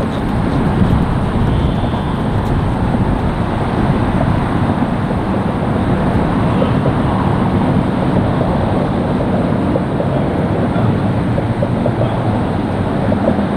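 Steady low outdoor rumble with no distinct events, the kind left by wind on the microphone or distant traffic.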